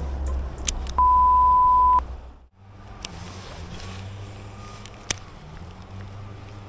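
A single steady, pure beep tone lasting about one second. After a sudden cut it gives way to a low steady hum with an occasional sharp click.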